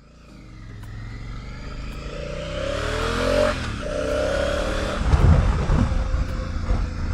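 Honda Africa Twin CRF1000L parallel-twin engine accelerating hard. Its pitch rises, breaks briefly about three and a half seconds in, then rises again, getting steadily louder, with a heavy low rumble from about five seconds in.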